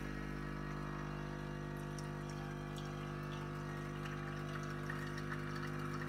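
Silvercrest SEM1100 espresso machine's pump running with a steady buzzing hum as it pushes water through the coffee. About four seconds in, a faint trickle joins it as espresso starts to run into the cup.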